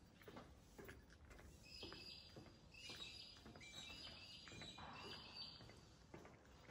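Faint footsteps on a marina walkway, one step a little under every second, while a bird calls in a run of short chirps from about two seconds in until past five seconds.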